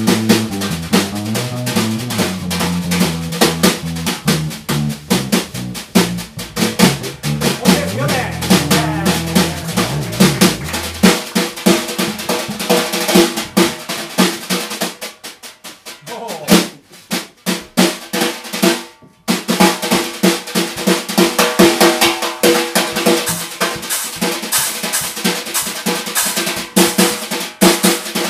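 Live band music on electric bass and drum kit. The low bass line stops about eleven seconds in, leaving the drums, with snare rolls, to the fore. Near two-thirds of the way through the playing drops almost to nothing for a moment, then the drums come back in.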